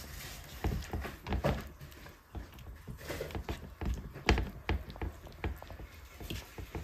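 Fingers rubbing a wet white-mustard paste into raw fish steaks on a steel plate, making irregular soft squelches and small taps against the metal.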